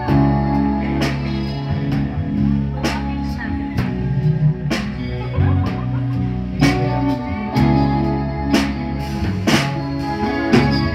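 Live rock band playing: electric guitars, keyboard and drum kit, with a slow beat and a drum hit about once a second.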